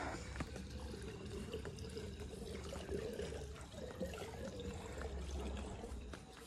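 Water trickling and pouring, with a steady low hum underneath.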